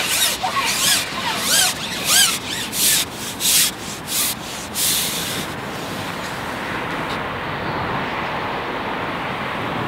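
A run of about eight quick rubbing strokes, then a steady hiss for the last four seconds or so.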